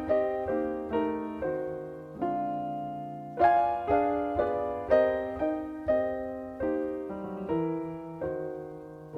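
Solo jazz piano playing slow chords, each struck and left to ring and fade, about one to two a second, with a stronger chord about three and a half seconds in.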